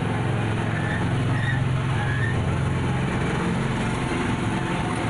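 Small amusement-park tourist train running, heard from inside its open passenger carriage: a steady low engine hum.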